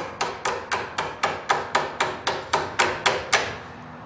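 Hammer tapping a pin through the hole in a golf cart's spindle bolt: quick, even taps at about four a second that stop a little over three seconds in.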